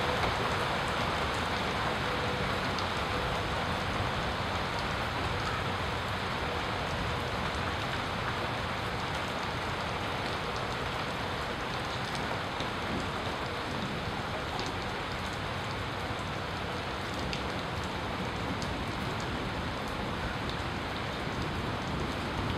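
Steady rain falling through a thunderstorm, a continuous hiss with scattered sharp ticks of individual drops.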